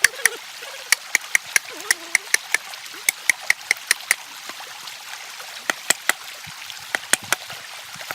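A stream running steadily, under a run of sharp, irregular clicks or knocks, a few a second, pausing briefly about halfway through.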